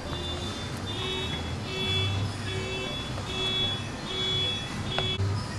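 An electronic warning beep repeating about every 0.8 seconds, roughly seven times, over a low steady hum.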